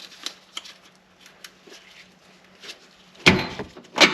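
Light metallic taps and clicks, then two loud clunks about three and four seconds in, as a bolt and the new lower control arm are worked into line.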